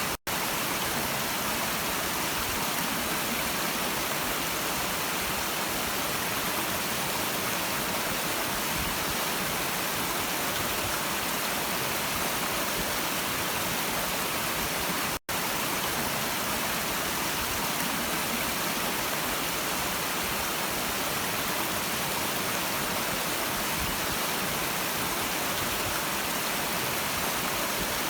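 Stream water flowing in a steady, even rush, dropping out for an instant twice.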